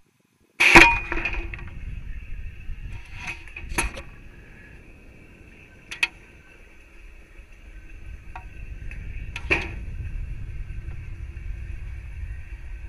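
Onboard audio from the STIG-A rocket high in flight: a sudden sharp bang about a second in, then a low rumble under a steady high whine, broken by a few sharp clicks, cutting off abruptly at the end.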